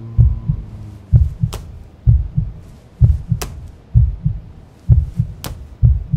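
Heartbeat sound effect: a low double thump repeating about once a second, with a sharp click about every two seconds over it.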